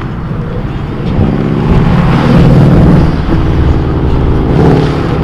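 Car engine revving hard under acceleration, rising in pitch and getting loudest about two to three seconds in, then pulling up again near the end.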